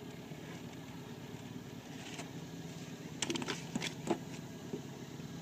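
A quick cluster of sharp knocks and taps against the boat about three seconds in, as a hooked gar is pulled up off the trotline and handled. Under it runs a steady low rumble.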